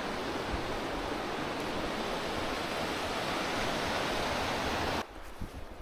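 Steady rushing of fast-flowing stream water, even and unbroken, cutting off sharply about five seconds in.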